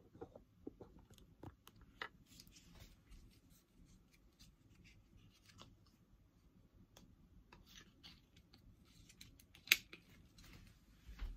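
Small plastic Nerf blaster being handled and loaded with foam darts: faint, scattered plastic clicks and rustles, with one sharper click near the end.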